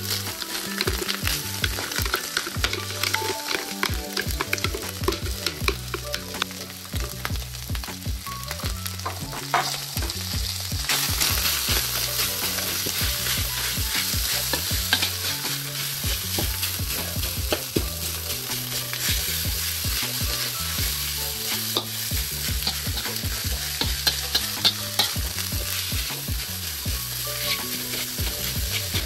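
Food stir-fried in a hot wok: a steady sizzle with frequent clicks and scrapes of the spatula against the pan. The sizzle grows louder about eleven seconds in.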